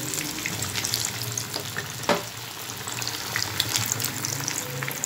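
Browned, nearly cooked fish pieces deep-frying in hot oil: a steady sizzle full of small crackles and pops, with one sharper crack about two seconds in.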